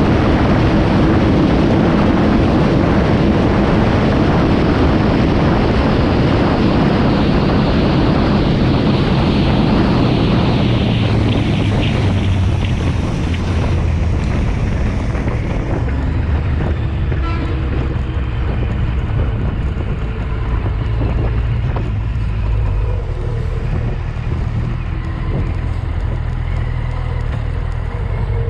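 Wind rushing over the microphone of a Kawasaki Z750 being ridden at speed, with its inline-four engine running underneath. About halfway through the wind eases and the engine's low, steady drone comes forward.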